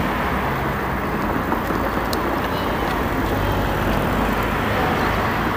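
Steady outdoor street noise, a low even rumble with a few faint clicks over it.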